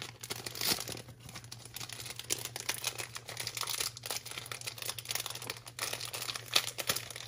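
Plastic packaging crinkling and crackling in irregular bursts as it is handled and opened.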